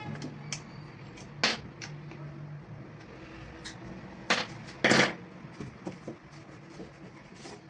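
A few separate clicks and knocks of tools and parts being handled during a repair, the loudest about five seconds in, over a faint low hum that stops about two and a half seconds in.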